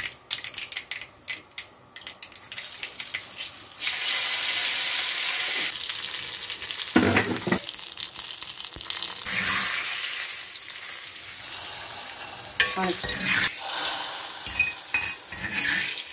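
Mustard seeds and fenugreek crackling and popping in hot oil in a pan, then a loud steady sizzle from about four seconds in as dried red chillies and curry leaves fry in the oil for a tempering. A few knocks of a utensil against the pan come midway.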